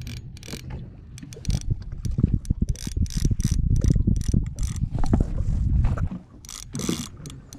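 Spinning fishing reel under load from a heavy fish: rapid, irregular mechanical clicking and ratcheting as the reel is worked, over a low rumble of rod and glove handling.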